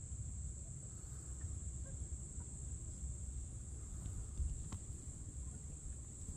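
Singing insects, a continuous high-pitched drone from the autumn grass, over a low wind rumble on the microphone. A single click sounds a little past the middle.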